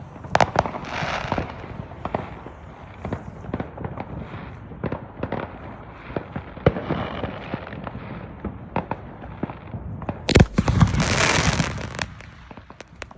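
Fireworks going off: scattered bangs and pops throughout, then one loud, sudden bang about ten seconds in, followed by about a second and a half of dense rushing noise.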